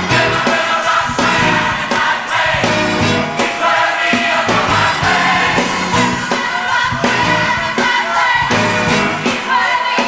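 Live gospel music: a choir singing with band accompaniment over a steady beat.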